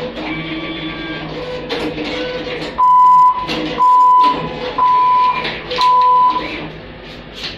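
Diebold Nixdorf cash machine giving four loud, even beeps about a second apart, the prompt to take the dispensed cash and receipt. Before them, its dispensing and receipt-printing mechanism whirs.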